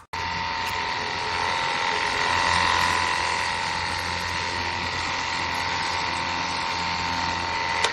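Ontel Turbo Jet HydroX5 Pro cordless pressure washer running, its battery-powered pump giving a steady whine over a hiss of spray. It starts abruptly just after the start and stops abruptly near the end.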